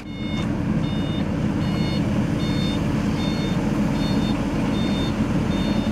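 A vehicle reversing alarm beeping steadily, about one short high beep every 0.8 seconds, over the constant low rumble of the engines of a tandem road roller and an asphalt paver working on fresh asphalt.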